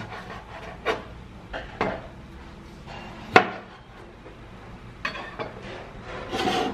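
Kitchen knife cutting through peeled orange segments, its blade knocking on the hard cutting surface in several separate taps, the loudest about three and a half seconds in. A short scrape near the end.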